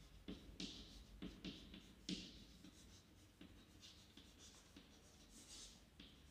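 Chalk writing on a chalkboard: faint, irregular scratches and taps of individual strokes, coming thickest in the first few seconds and thinning out after.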